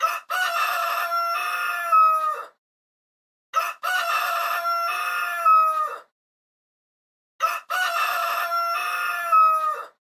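Rooster crowing: the same recorded cock-a-doodle-doo three times, each crow about two and a half seconds long and falling in pitch at its end, with dead silence between the crows.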